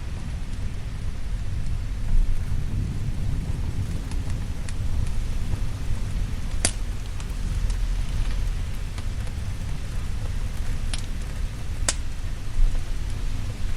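Steady rain with a low rumble of thunder underneath, and a few sharp crackling pops from a wood fire, the clearest ones in the second half.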